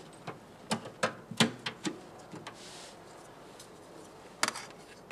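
Light clicks and taps as the snap-in clips of a Fiat 500's front emblem are worked loose by hand: several sharp ticks in the first two seconds, then a quick cluster of clicks about four and a half seconds in.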